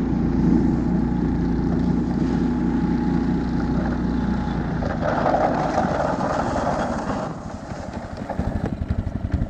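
Husky motorized snow-towing unit's small engine running steadily under load while it pulls a sled with two riders over snow. About seven seconds in the engine drops back and goes on as a quieter, uneven, pulsing putter.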